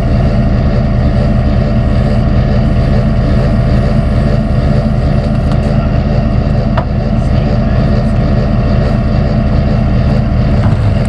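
A motor running steadily nearby: a loud, even, low engine drone that holds unchanged throughout.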